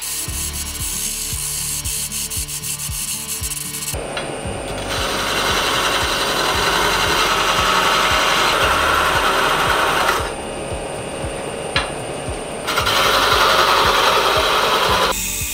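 Wood lathe spinning a wooden blank while a parting tool and chisel cut into it: a continuous scraping hiss of the steel shaving the wood. It grows louder about four seconds in, drops back for a couple of seconds, then swells again near the end.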